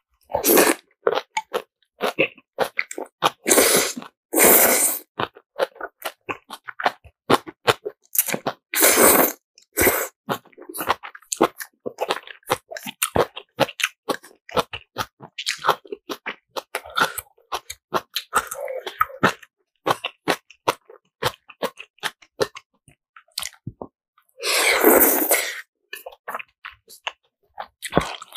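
Close-miked eating of spicy black bean ramen noodles: quick wet chewing clicks throughout, broken by several longer slurps, the longest near the end.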